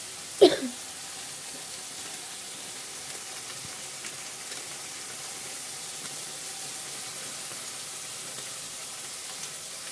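Chopped vegetables sizzling steadily in hot oil in a kadhai over a gas burner while turmeric powder is sprinkled in. A brief louder sound comes about half a second in.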